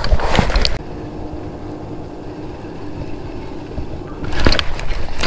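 Knocks and clatter of fishing gear being handled in a plastic kayak: a burst at the start as the landing net is moved, then a quieter stretch with a faint steady hum, then more loud knocks and rattling about four seconds in as the baitcasting rod is picked up.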